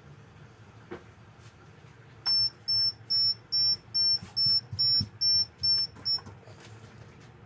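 Electronic beeper of a gas range sounding a run of ten short, high, evenly spaced beeps, about two and a half a second, which then stop.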